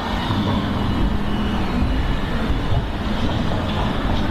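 Slow street traffic: car and truck engines running and passing close by at low speed, a steady low rumble with an engine hum in the first half. A vehicle's reversing alarm beeps faintly now and then.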